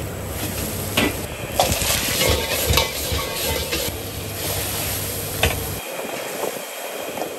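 Stir-frying in a wok over a fierce gas burner: a steady sizzle and burner roar with several sharp metal clanks of the spatula and ladle against the wok. Near the end the low roar drops away, leaving a lighter sizzle.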